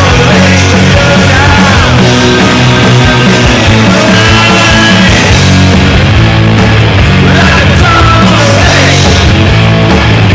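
Garage punk rock song with electric guitar, played loud and without a break.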